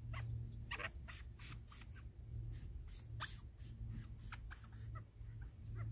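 Knife blade cutting through the fleshy bracket of a resinous polypore (Ischnoderma resinosum): a run of short, irregular squeaky scraping strokes, several a second.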